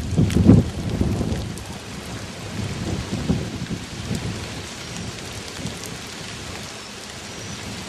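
Rain falling steadily during a tornado-warned thunderstorm. Low rumbling is loudest about half a second in and fades over the next second, with weaker rumbles about three seconds in.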